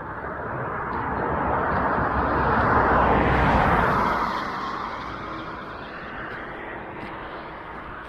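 A motor vehicle passing on the highway: road and tyre noise with an engine rumble that builds, peaks a few seconds in, and fades as it goes by.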